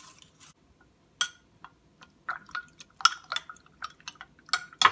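A spoon stirring paper scraps in a glass of water, clinking against the glass in irregular ringing taps that come more often toward the end.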